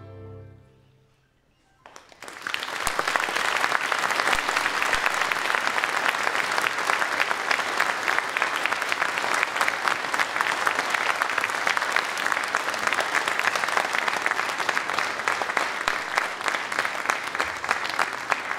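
The last held note of the music dies away, then after a brief hush an audience starts applauding about two seconds in, an even clatter of many hands clapping.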